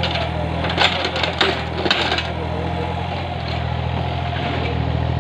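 Yanmar 35 mini excavator's diesel engine running steadily, with a few sharp metallic clanks and scrapes about one to two seconds in as the bucket works the soil.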